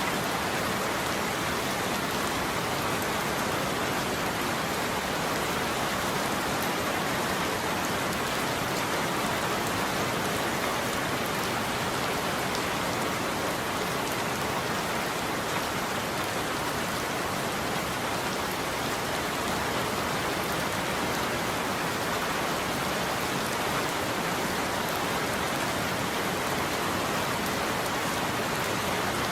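Steady rain falling on surfaces, an even hiss that doesn't let up.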